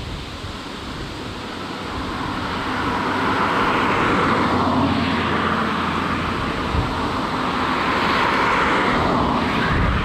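A steady rushing engine drone that swells over the first few seconds and then stays loud.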